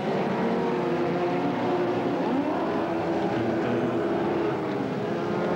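Several stock car engines running together on the track, the pitch of individual cars rising and falling as they accelerate and pass.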